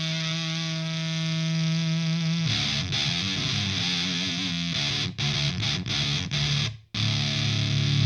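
Electric guitar played through a Gamechanger Audio Plasma Pedal, a fuzz that turns the signal into 3500-volt sparks inside a tube. A distorted note is held for about two and a half seconds, then comes a run of choppier notes with brief cut-outs where the pedal's natural gate shuts the sound off. The sound goes silent for a moment before a new note near the end.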